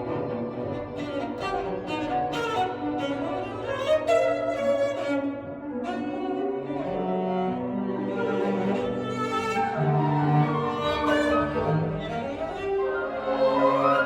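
Orchestral string music, cello and violins playing a flowing melodic passage, reproduced through Audio Physic Rhea hi-fi loudspeakers.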